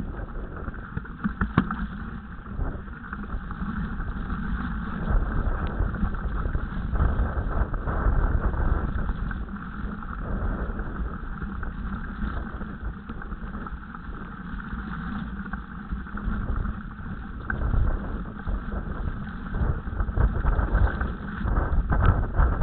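Mountain bike riding downhill over rough, wet grass: a constant low rumble of wind and rolling noise on the camera, with rattles and occasional sharp knocks from the bike going over bumps.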